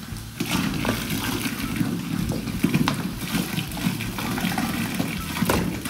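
Fizzy cola gushing and splashing from a freshly opened large bottle, a steady rushing of liquid broken by a few sharp clicks.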